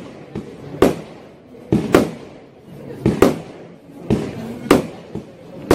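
100-shot fireworks cake (consumer battery) firing shot after shot: sharp bangs come roughly every half second to second, often in pairs, with a rumbling crackle between them.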